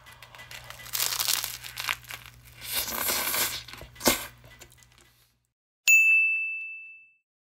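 Crusty baguette sandwich crackling and tearing as hands squeeze and pull it apart, in two spells with a sharp snap just after; then a single bright ding that rings out and fades, a logo chime.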